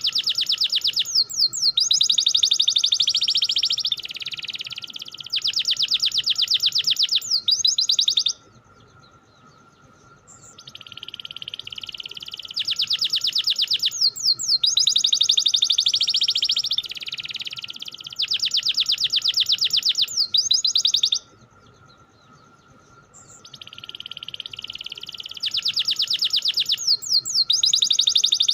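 Domestic canary singing long rolling phrases of fast, rapid trills and chirps, in three bouts broken by short pauses about 8 and 21 seconds in. A faint steady tone hums underneath throughout.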